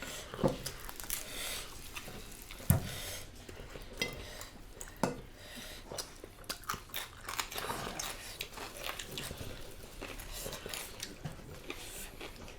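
Close-up eating sounds: chewing and biting into crispy deep-fried pork skin, with sharp crunches and cracks at irregular moments, the loudest about half a second, three seconds and five seconds in.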